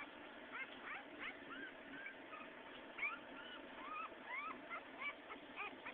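Young puppies whimpering: faint, short, high squeaks that rise and fall, a few a second.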